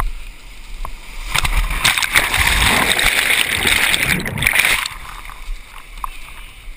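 Whitewater rapids rushing and splashing around a kayak's bow. From about one and a half seconds in to about five seconds, a loud rush of water washes over the bow-mounted GoPro as the bow goes into the waves.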